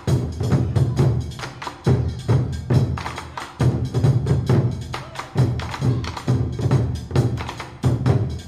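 Background music with a fast, driving percussion beat: sharp clicking strikes over a recurring heavy low drum pulse.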